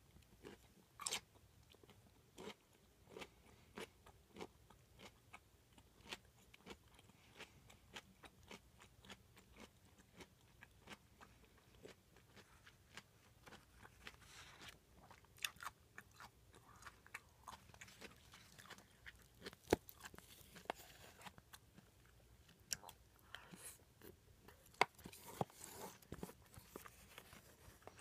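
A person chewing food close to the microphone: faint, irregular sharp mouth clicks of chewing throughout, with a few louder ones about halfway through and near the end.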